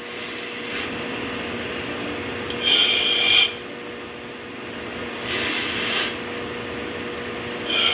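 A man breathing audibly through the nose in slow, even box breathing, each phase about two counts long. Rushes of air come about three seconds in, again around five and a half seconds, and near the end, with quieter breath-holds between them.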